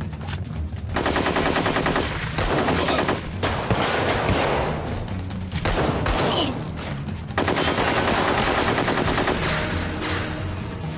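Automatic rifle fire in a shootout: several bursts of rapid shots, the longest about two seconds, with short pauses between them.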